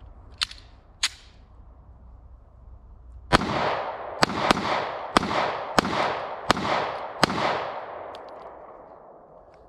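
Two sharp clicks, then a Walther PPS-M2 9mm pistol fired seven times in fairly quick succession, each shot ringing out with a trailing echo.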